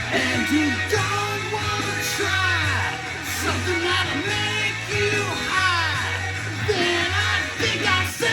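Rock song with singing, played from a vinyl record on a turntable.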